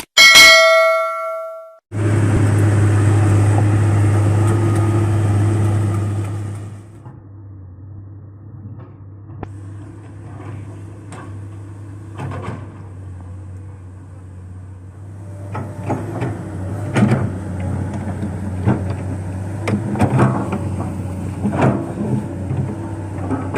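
A short ringing chime, then a Komatsu PC200 excavator's diesel engine running, loud and steady at first and dropping to a lower level after about six seconds, with irregular metallic clanks and knocks that grow more frequent toward the end.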